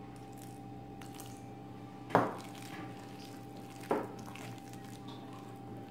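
Hand mixing thick flour-and-curd batter in a glass bowl, with two sharp knocks against the bowl about two seconds apart, over a steady low hum.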